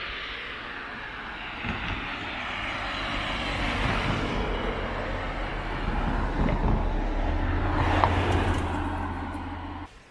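A motor vehicle passing close by. Its noise builds over several seconds, with a steady low engine hum joining near the end, and it cuts off suddenly just before the end.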